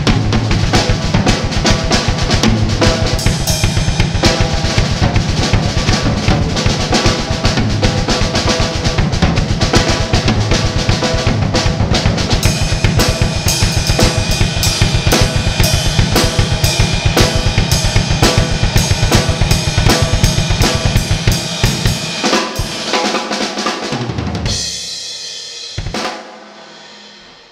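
Drum kit played fast, with bass drum, snare and cymbals in dense rapid strokes. Near the end the bass drum drops out, and a final accented hit leaves the cymbals ringing as the sound fades.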